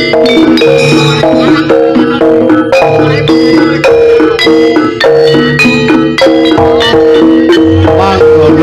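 Javanese gamelan playing jaranan dance music: bronze metallophones and gongs strike a fast, repeating interlocking pattern over a steady low beat.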